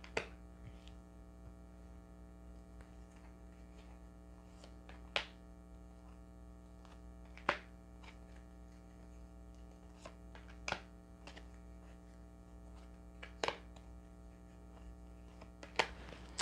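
Tarot cards being dealt onto a cloth-covered table, each card landing with a sharp tap, about six in all at uneven intervals of two to three seconds, over a steady electrical hum.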